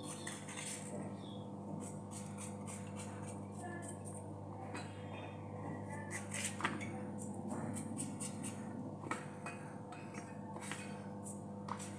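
A small knife cutting pieces off a peeled white vegetable held in the hand, with a run of light clicks and taps as the cubes drop onto a steel plate, a few sharper clinks among them. A steady low hum runs underneath.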